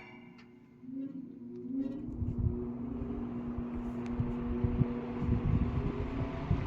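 Mid-1960s AMC (made by Hunter) 20-inch box fan with aluminum blades starting up on low speed: about a second in, the motor hum comes in and rises in pitch as it spins up, then settles into a steady hum over a growing rush of air from the blades.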